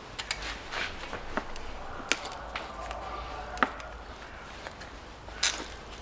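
Sharp clicks and knocks of plastic hose fittings and connectors being handled on a car engine, loudest about two, three and a half, and five and a half seconds in.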